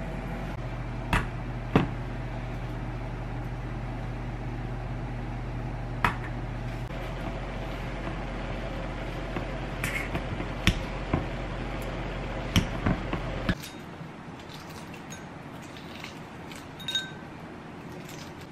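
Kitchen food-prep sounds over a steady low hum. Potato pieces drop into a stainless steel saucepan with two sharp knocks early on. About ten seconds in, a metal potato masher clinks repeatedly against a stainless steel bowl. After the hum stops, near the end, come faint crackles of shell as a boiled egg is peeled.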